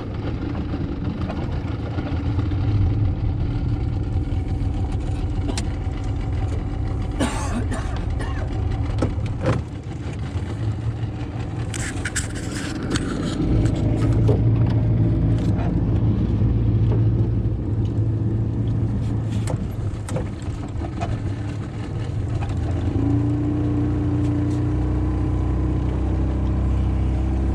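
Outboard motor running steadily with the boat under way, its note settling at a higher, steady pitch about three-quarters through. A few sharp knocks and clatters and a brief splashy hiss come over the engine in the first half.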